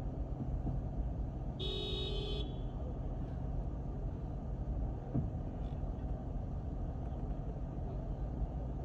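Steady low rumble of a car on the road, with a car horn honking once, for under a second, about a second and a half in.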